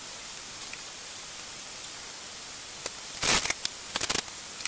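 Sliced mushrooms and diced onions sizzling in a pan on medium-high heat, a steady soft hiss, sautéing in the liquid the mushrooms have released. A few short knocks and clatters come about three seconds in and again around four seconds.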